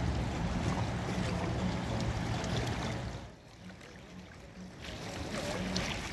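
Wind buffeting the microphone over the rush of choppy, fast-moving floodwater. The low rumble drops away about three seconds in, leaving a quieter wash of water and wind.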